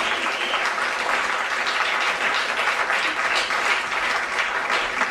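Theatre audience applauding, a dense steady patter of many hands clapping.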